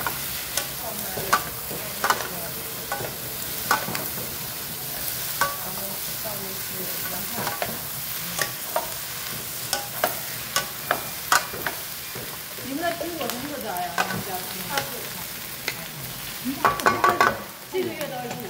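Vienna sausages, onion and bell peppers sizzling in a wok while two wooden spatulas toss them, knocking against the pan about once or twice a second. A denser burst of clattering comes near the end.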